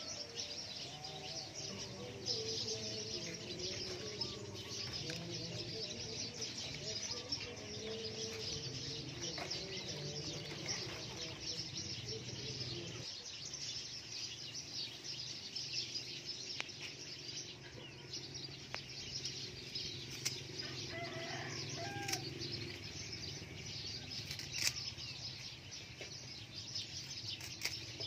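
Birds chirping continuously in a dense, high chatter, with some lower wavering calls and a short curling call about twenty seconds in. A few sharp clicks come near the end.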